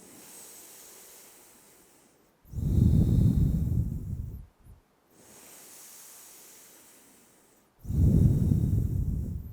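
A person breathing deeply and slowly: long quiet inhales, each followed by a loud rushing exhale, twice, about five seconds apart.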